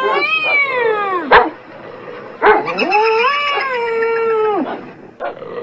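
A dog barks once between two long, wavering animal wails: the first slides down in pitch, the second rises, holds and drops away near the end.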